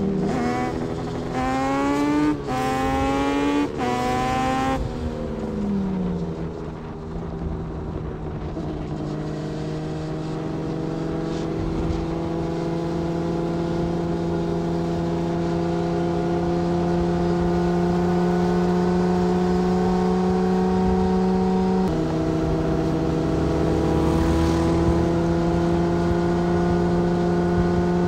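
Motorcycle engine accelerating hard through three or four quick upshifts, each a rising climb in pitch, then dropping off and settling into a long steady cruise at an even pitch, with a small drop in pitch about three quarters of the way through.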